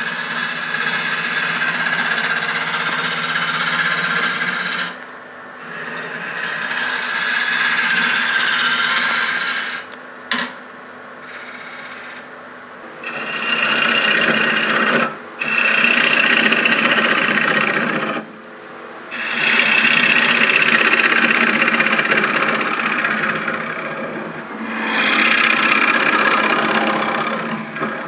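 Wood being worked by a tool against a spinning bowl blank on a woodturning lathe: a rough scraping hiss in passes a few seconds long, broken by short pauses, over a motor hum that is plain in the first few seconds.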